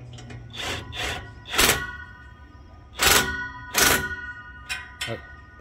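Cordless DeWalt impact wrench with a 15 mm socket hammering in several short bursts as it tightens an exhaust bracket bolt.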